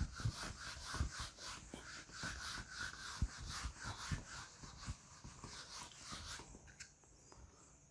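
Whiteboard duster rubbing across a whiteboard in a series of quick back-and-forth wiping strokes, erasing marker ink; the wiping stops shortly before the end.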